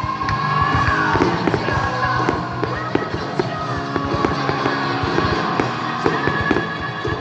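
Fireworks going off in many quick bangs and crackles over loud music played during the display.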